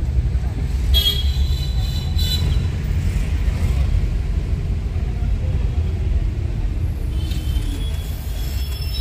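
Steady low rumble of a car moving through city traffic, heard from inside the car, with a few brief high-pitched sounds from the street.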